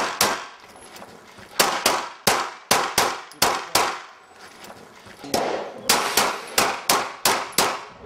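Glock 17 9mm pistol fired in rapid strings of shots, about a dozen and a half sharp reports with a pause of a little over a second near the middle.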